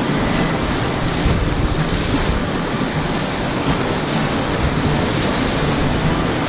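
Rushing river whitewater, a loud, steady wash of water noise with no break or beat.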